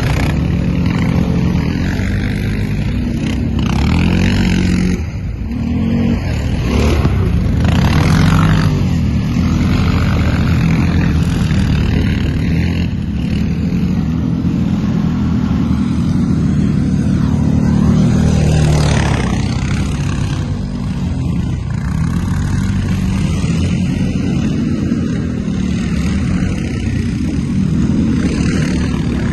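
ATV engine running under way, its pitch rising and falling repeatedly as the throttle is opened and eased off.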